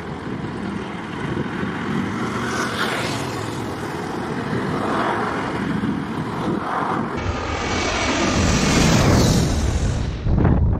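Jet airliner engines, a dense noise that grows louder over several seconds, loudest about nine seconds in, with a brief dip near the end.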